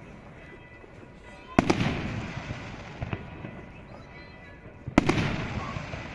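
Fireworks shells bursting: two loud bangs about three and a half seconds apart, each followed by a rolling echo, with a smaller pop between them.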